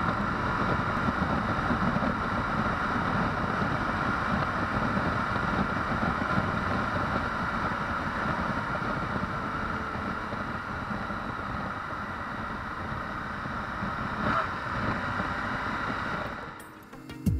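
Suzuki V-Strom 1050XT's V-twin engine running at a steady cruise, mixed with wind rush on the on-board microphone; it fades out near the end.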